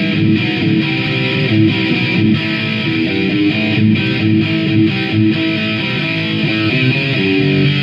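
Electric guitar playing a riff, a run of notes that change pitch quickly and keep going without a break.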